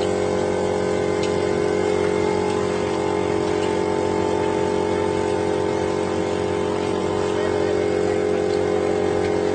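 An engine running steadily at a constant speed, an even hum that neither rises nor falls.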